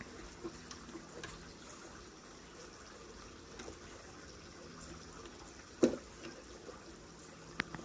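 Faint steady trickle of water, with one sharp knock about six seconds in.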